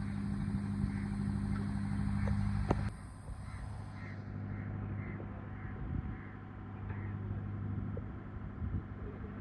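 Goods truck engine running steadily, its hum easing off about three seconds in just after a sharp click. A faint regular chirp repeats about twice a second.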